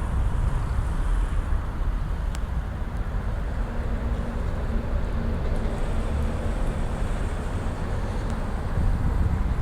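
Steady low rumble of outdoor street noise with traffic and wind on the microphone, and a faint click about two and a half seconds in.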